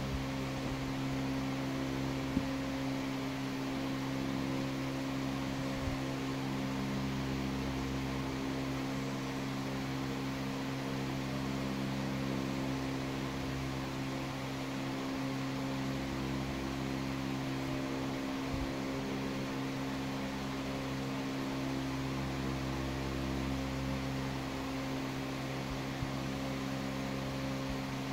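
Steady low mechanical hum with several even tones running without change, with a few faint clicks.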